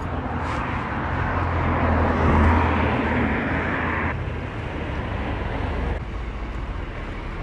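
City street traffic noise: a passing vehicle's sound swells for about three seconds and cuts off suddenly, over a low steady rumble.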